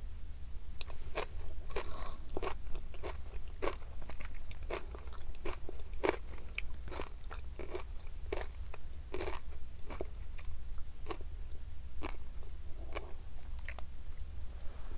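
Close-miked chewing of fish roe, with many short crisp pops and crunches at an irregular pace.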